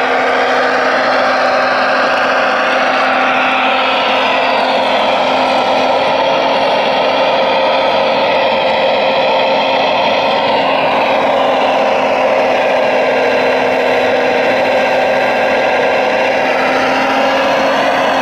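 Radio-controlled Liebherr 970 SME model excavator running: a steady hum with whining tones that slowly rise and fall as the boom and log grapple move.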